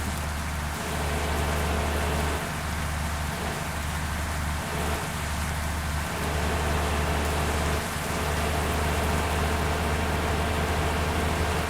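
Heavy rain falling in a steady hiss, with a bus engine's steady low hum underneath.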